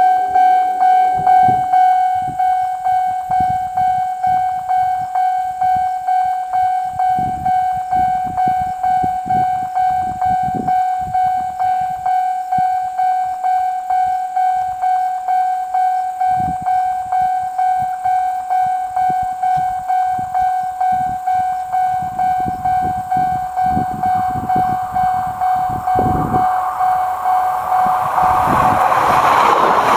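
Railroad level crossing warning bell ringing in an even, fast beat of about two to three strokes a second on one steady pitch. Near the end the rushing noise of an approaching JR E3 Series 2000 Tsubasa mini-shinkansen grows and becomes the loudest sound, with gusts of wind rumbling on the microphone.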